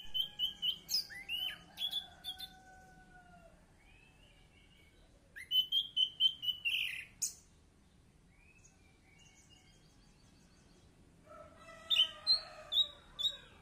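Caged orange-headed thrush singing: three bursts of rapid, varied whistled and chattering notes, with a few quieter notes between them.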